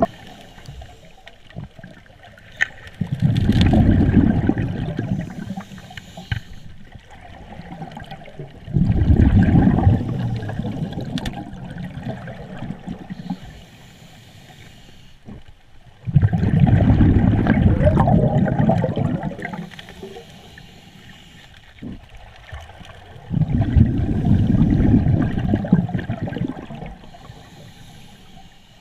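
Scuba regulator exhaust heard underwater: the diver's exhaled air bubbling out in four long bursts about every seven seconds, with quieter inhalations between.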